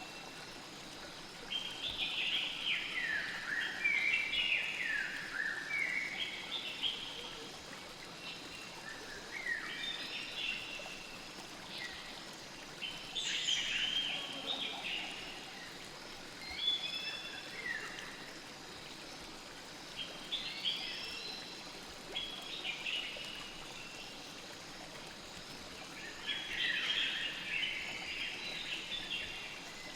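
A songbird singing short phrases of quick falling and warbling notes, repeated every few seconds, over the steady hiss of a flowing stream.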